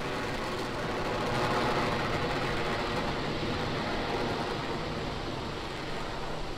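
Falcon 9 first stage's nine Merlin engines firing at full thrust during ascent: a steady, noisy rocket roar that swells a little about a second in.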